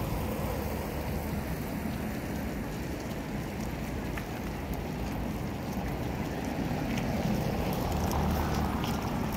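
City street ambience: a steady hum of traffic with wind rumbling on the microphone. It swells near the end as a car passes close by.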